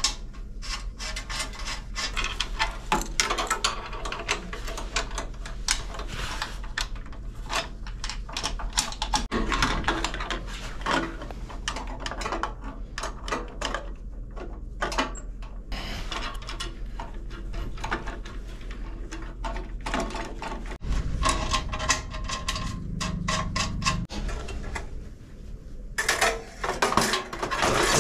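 Hand tools clicking, knocking and scraping on the brass pipe fittings of an espresso machine's plumbing as they are worked on, in irregular clicks over a steady low hum.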